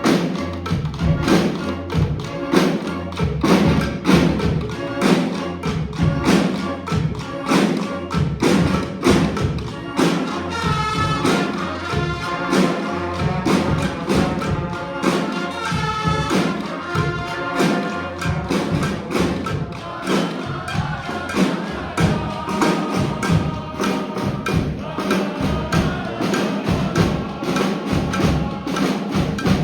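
A honk-style street band of brass, saxophones and drums playing an up-tempo tune, driven by a steady beat of heavy drum hits. Held horn notes stand out most in the middle.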